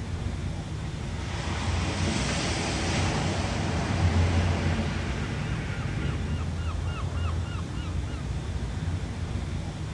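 Ocean waves breaking and washing in, one surge swelling about two seconds in, over a steady low rumble. Around the middle, a quick run of about eight short falling chirps sounds over the surf.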